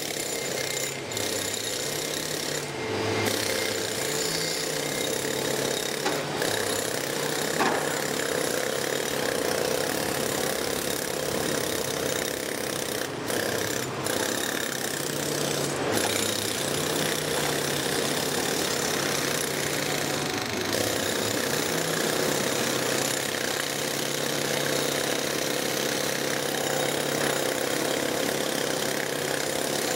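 Doosan crawler excavator's diesel engine running under hydraulic load, its note stepping up and down again and again as the boom and bucket dig and swing soil into a dump truck.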